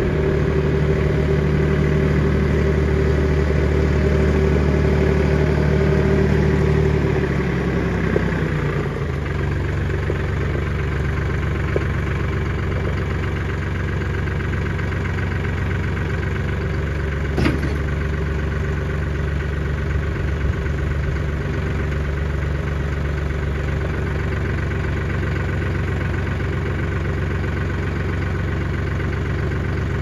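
Front-loader tractor engine running at raised revs, then dropping to a steady idle about eight seconds in. A single short knock about halfway through.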